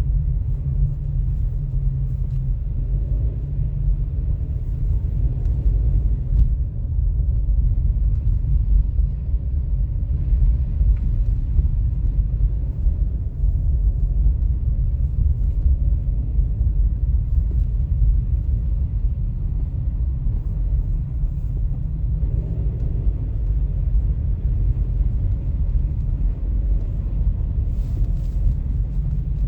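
Storm wind buffeting the microphone in a steady, heavy low rumble, with faint traffic passing now and then.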